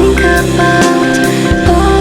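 Background rock music with drums, bass and guitar.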